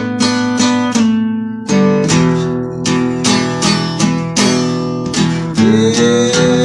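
Acoustic guitar playing folk blues, chords struck in a steady rhythm with no singing.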